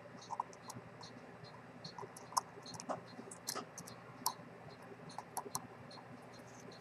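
Fine steel tweezers clicking and tapping on the small metal parts of a Rolex 6694 watch movement: light, sharp clicks at an uneven pace, a few louder than the rest.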